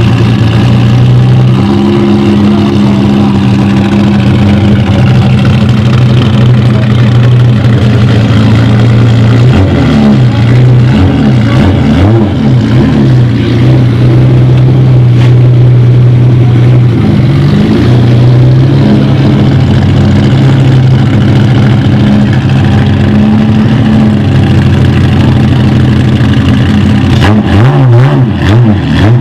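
Ferrari F50's V12 engine through a Tubi exhaust, running at a loud steady idle. It gives short revs about ten seconds in, again about halfway through, and once more near the end.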